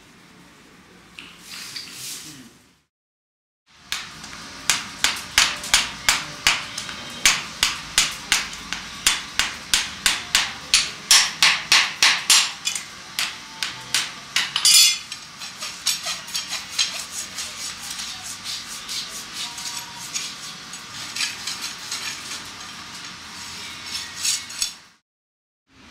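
Steady hammering: sharp knocks about two to three a second, loud at first, with one louder strike about fifteen seconds in and lighter, quicker blows after it.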